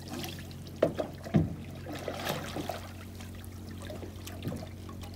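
Oars of a small rowboat dipping and pulling through calm water, with water trickling off the blades, and two sharp knocks about one and one and a half seconds in. A steady low hum runs underneath.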